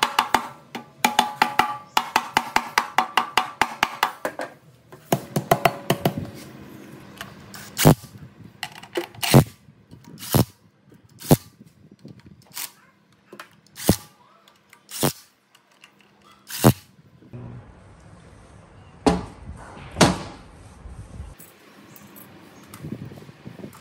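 Repeated sharp knocks and strikes with some ringing. A quick run of about five blows a second comes first, then single blows about a second apart, and a few seconds of hiss with two last blows near the end.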